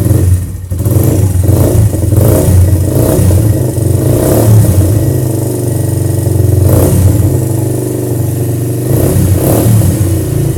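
Suzuki Yes 125 single-cylinder four-stroke motorcycle engine running loudly through an aluminium SS aftermarket exhaust, with a few short surges in revs.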